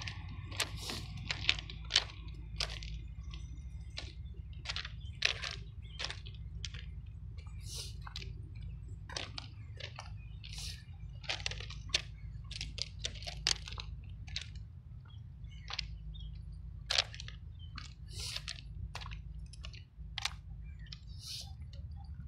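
Footsteps crunching on loose crushed-stone railway ballast, an uneven run of sharp crunches one to three a second, over a low steady rumble.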